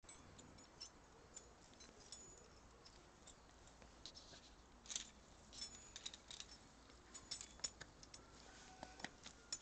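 Faint scattered clicks and light metallic clinks of climbing gear, carabiners and harness hardware, being handled at a climber's harness.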